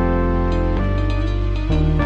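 Background music of sustained chords, changing twice.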